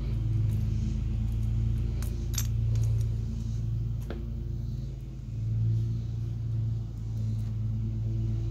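A few light metallic clinks of small valve-train parts being handled and fitted on a Kawasaki FH451V cylinder head, the sharpest about two and a half seconds in, over a steady low hum.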